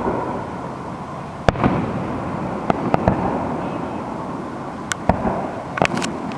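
Aerial fireworks shells bursting: about eight sharp bangs at irregular intervals, some in quick pairs, over a continuous rumble from the display.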